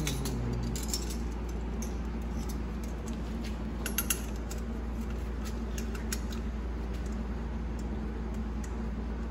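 Light, scattered metal clicks and clinks of E4OD/4R100 transmission pump parts being handled and fitted together, with a small cluster of them about four seconds in, over a steady low hum.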